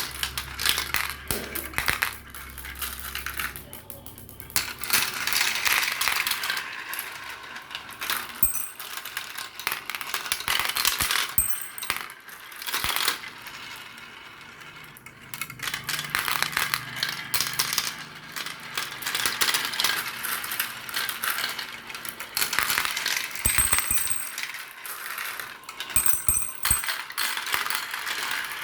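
Many marbles rolling and clattering down a marble run track: a dense stream of clicks and rattles that swells and eases in waves, with brief lulls.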